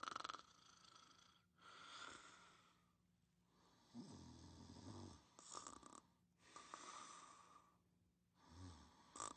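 Quiet snoring: slow breathy inhales and exhales, with a low snore about four seconds in and a shorter one near the end.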